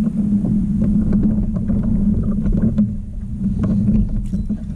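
Old Town Sportsman PDL 120 kayak under pedal-drive power: a steady low hum from the drive, with light clicks and knocks from the hull. It starts suddenly.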